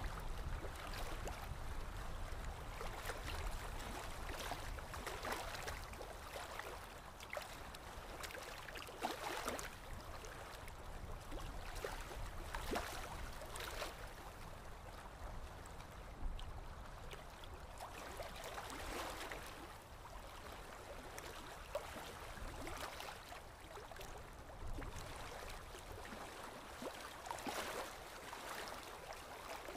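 A paintbrush scratching and dabbing acrylic paint onto a canvas board, in short irregular swishes a second or two apart.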